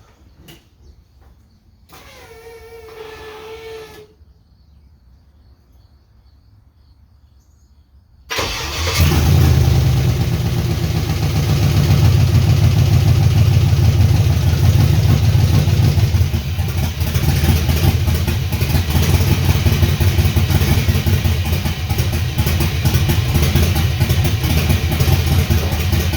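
LS V8 engine starting about eight seconds in and then idling steadily, misfiring with one cylinder dead under a compression tester and an ignition coil left unplugged. A brief pitched whine sounds about two seconds in, before the start.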